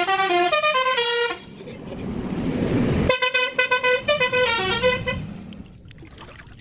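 Bus telolet horn playing a tune of short notes at stepped pitches, twice, with a rushing noise in between.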